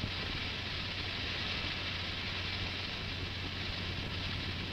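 Steady, even hiss with a constant low hum underneath, with no distinct events.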